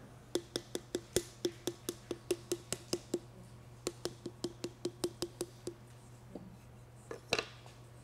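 A potter's paddle slapping the soft clay wall of a thrown pitcher to shape it. About five light, even taps a second come in two runs with a short pause about three seconds in, then a couple of louder knocks near the end.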